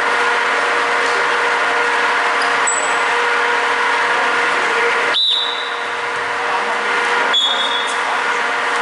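Steady hum and noise of an indoor basketball court during play, with two brief high-pitched chirps, one about five seconds in and one about seven and a half seconds in.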